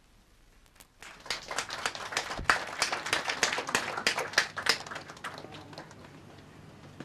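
A small audience clapping. The clapping starts about a second in, swells, then dies away over the next few seconds.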